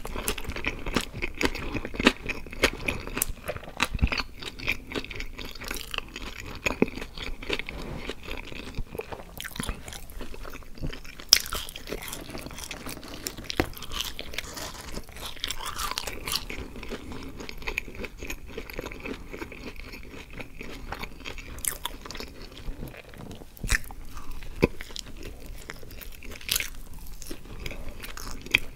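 Close-miked chewing and crunching of a fast-food burger and french fries, with bites and wet mouth sounds throughout.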